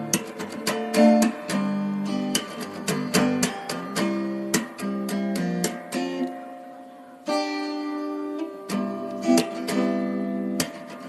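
Acoustic guitar music, plucked notes and strummed chords, with a new chord struck about seven seconds in.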